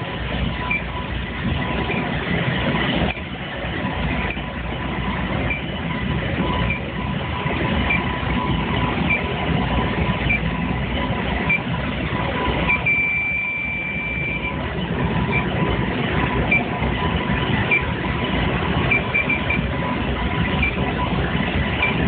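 Testo 316-3 electronic refrigerant leak detector chirping about once a second, then holding a steady high tone for a second and a half about 13 s in, as its probe picks up refrigerant at a marked spot on an evaporator coil, which the technician takes for a leak. Underneath runs loud steady noise from the air-conditioning unit's air handler.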